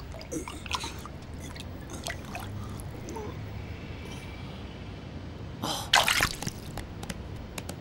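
Cartoon sound effects of wet, dripping liquid and small scattered squelchy clicks as a clay cat peels itself out of a puddle. A louder wet burst comes about six seconds in as the cat springs up out of it.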